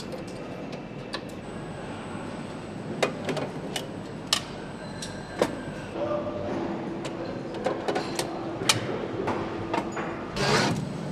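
Motorcycle cylinder-head assembly station: a steady factory machine hum with scattered sharp metallic clicks and clinks of parts being handled and fitted. A steady hum tone joins about halfway through, and a short hiss comes near the end.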